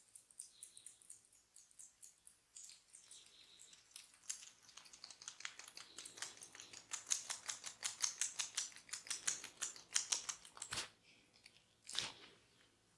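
Massage hands working on a person's head: quick, crisp strokes and pats on skin and hair that build to about four or five a second in the middle. Near the end comes a single sharp crack, then a broader slap.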